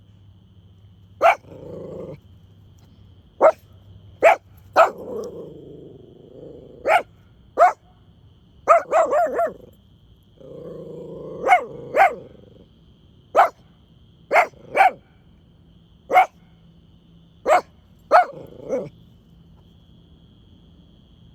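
Puppy barking in sharp single barks spread throughout, with a rapid run of several about nine seconds in and low growls between some of them. A faint steady insect chirr sits behind.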